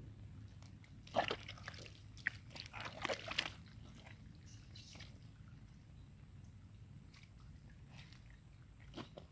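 Faint rustling and scratchy crackles of hands working through bankside grass and weeds to retrieve a landed fish. The crackles come in short clusters about a second in and again around three seconds in, over a low steady rumble.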